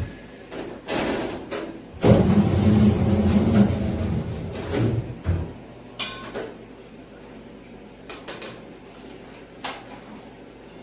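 Clanks from the spiral dough mixer's wire safety guard, then the mixer's motor running for about three seconds before it stops, followed by a few light knocks and scrapes of steel bowls.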